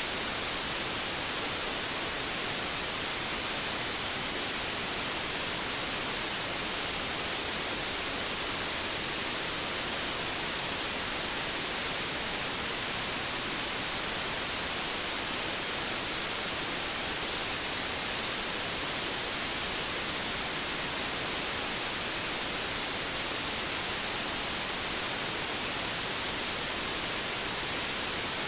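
Steady white noise: an even, unchanging hiss with most of its energy in the high frequencies.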